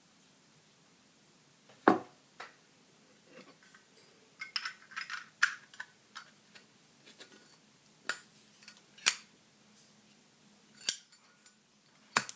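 Sharp metallic clicks and clinks from a Zippo lighter being handled after refuelling. About a dozen irregular clicks, with a quick cluster of them around the middle; the loudest come about two seconds in and near the ninth second.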